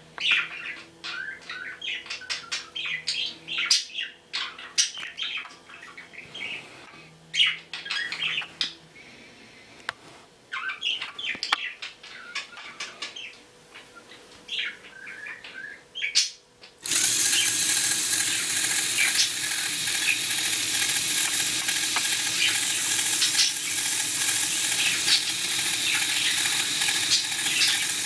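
Scattered short high chirps and clicks, then, about two-thirds of the way in, the Lego robot's electric motors and gear train start up suddenly and run with a steady whir and gear rattle.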